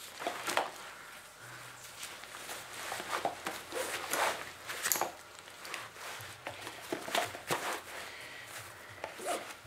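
Nylon straps and fabric of a Vortex binocular chest harness rustling and scraping as it is pulled on over the head and settled on the chest, in irregular bursts.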